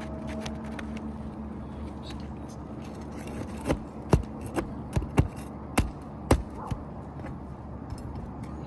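About seven sharp, short knocks and clicks, bunched between roughly three and a half and seven seconds in, as a tool is worked under old asphalt shingles to pry out nails, over a steady low background hum.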